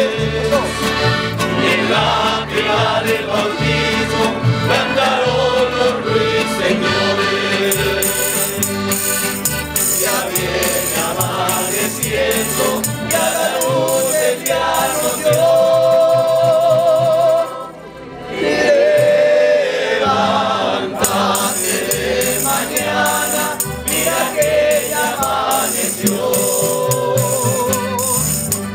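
A Mexican estudiantina sings in chorus to strummed guitars and bandurrias, accordion and double bass, with a tambourine jingling. The music drops out for a moment just past the middle, then carries on.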